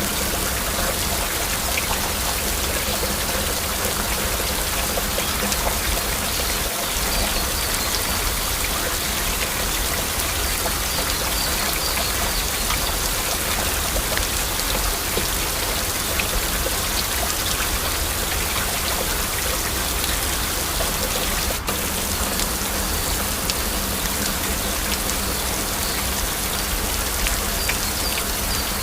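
Steady heavy rain: a dense, even patter of drops with no let-up.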